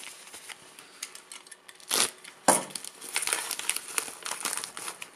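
White plastic bubble mailer crinkling and rustling as it is handled and opened, with two loud, sharp crackles about two seconds in and dense crinkling through the second half.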